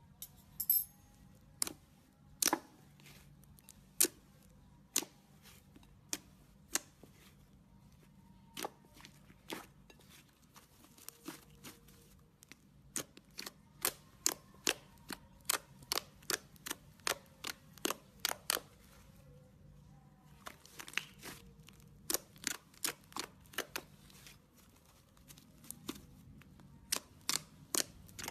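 Slime being squeezed and pressed by hand, giving a string of sharp, irregular clicks and pops from air pockets, at times several a second with brief pauses between runs.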